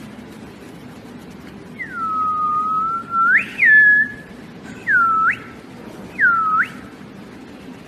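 Whistling in four pure notes: a long low note that sweeps sharply upward at its end, a short note, then two quick notes that each dip and swoop back up.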